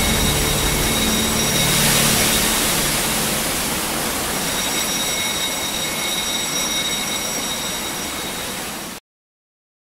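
Steady rushing hiss of water spraying from the ceiling heads of a deluge sprinkler system, with a low droning tone fading out in the first few seconds. The spray sound slowly grows fainter and cuts off suddenly near the end.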